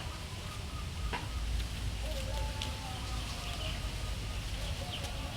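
Faint outdoor ambience: birds chirping here and there over a low rumble, with a few light clicks.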